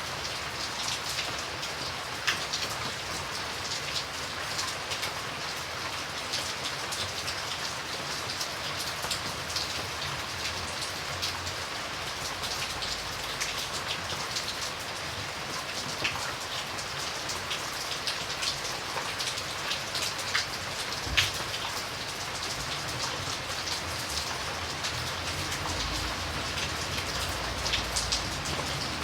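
Steady rain falling, an even hiss dotted with many distinct drop ticks, with one sharper drop hit a little past two-thirds of the way through.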